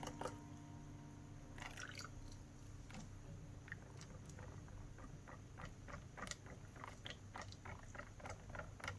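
Soft clicks and taps of kitchen work, a scattered few at first, then about two or three a second.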